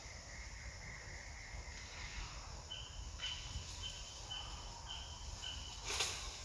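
Outdoor ambience with a thin high-pitched call: one steady note for about two seconds, then a run of short repeated notes, about two a second. A brief crunchy burst near the end.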